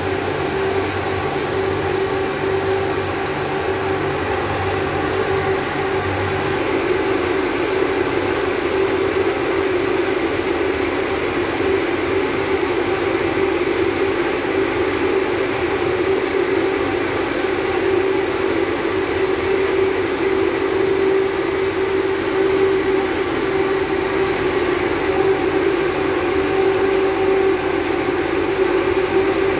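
Hose-fed paint spray gun spraying clear polyurethane varnish: a steady hiss of air and finish over a constant motor hum from the air supply.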